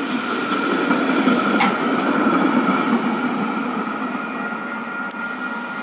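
A PCC streetcar rolls past close by and pulls away: the rumble of its wheels on the rails swells to its loudest about two seconds in, then fades. A steady high whine runs under it, and a sharp click comes about a second and a half in.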